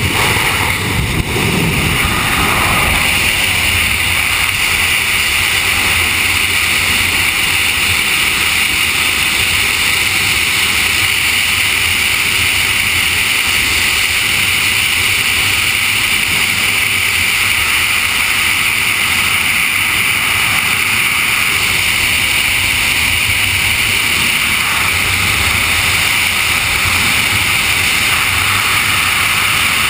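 Loud, steady rush of freefall airflow buffeting a camera's microphone: a constant hiss with a low rumble beneath it.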